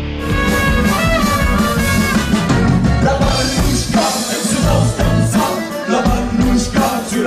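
Live band music with electric guitar, accordion, upright bass and drums, cutting in just after the start in place of other music.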